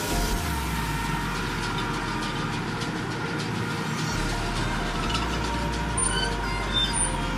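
Tractor engine running while a round baler works behind it, picking up hay, with a steady mechanical clatter and clicking from the baler.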